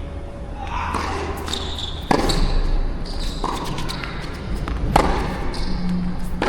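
Tennis rally: the ball struck by rackets and bouncing on the court, two sharp hits about three seconds apart with lighter impacts between, over a steady low wind rumble on the microphone.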